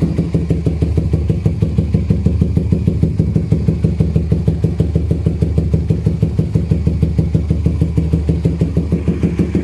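Suzuki Raider 150 Fi's single-cylinder four-stroke engine idling through an HGM aftermarket exhaust with the silencer insert removed: a loud, steady exhaust note of even pulses.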